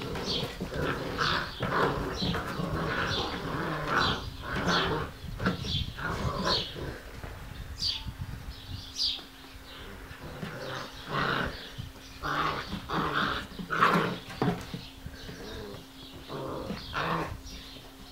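Several Giant Schnauzer puppies growling and yapping as they play-fight, in short, irregular bursts with a lull in the middle.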